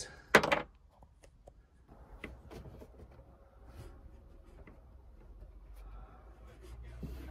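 Quiet handling sounds of a wooden rail being fitted into a van's bed frame: scattered light clicks, knocks and scrapes of wood and tools. There is one brief louder sound just after the start.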